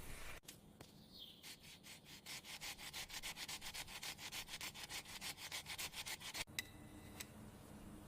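Rapid, even rubbing or scraping strokes, about five a second, building up over the first couple of seconds and stopping abruptly. A couple of light clicks follow.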